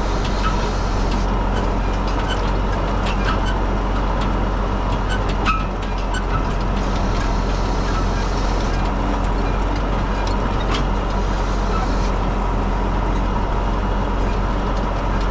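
A farm vehicle's engine running steadily at a constant speed, with a few light knocks over it.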